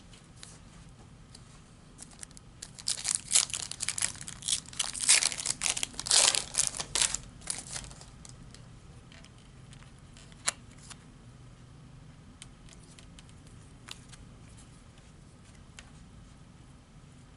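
Foil Panini Prizm trading-card pack being torn open and its wrapper crinkled: a dense run of loud crackling rips lasting about five seconds, then a few light clicks.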